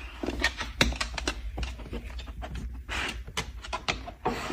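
A dog rummaging and scratching at something, making irregular clicks and short rustles with two longer scuffles, about three seconds in and near the end.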